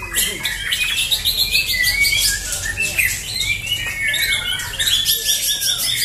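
Several caged white-rumped shamas (murai batu) singing at once: fast, overlapping runs of high whistled and chattering phrases.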